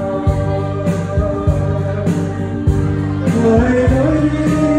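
Live electronic keyboard music played through a PA speaker: held chords over a programmed drum beat, with a voice singing along.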